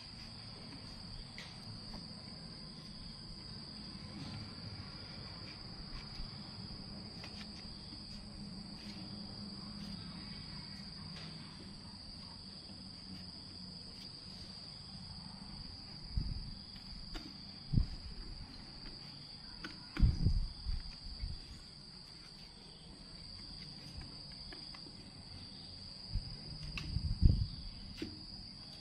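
Insects chirring in a steady, unbroken high-pitched drone. Several dull thumps come in the second half.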